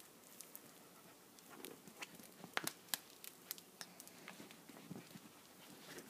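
Corgi puppy tugging and biting at a plush toy held in a hand: faint scattered clicks and short rustles of the toy being pulled and chewed, a few sharper ones midway.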